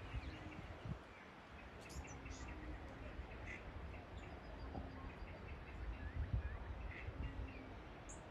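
Small birds chirping in repeated quick clusters of short calls throughout, with a few higher notes, over a low rumble.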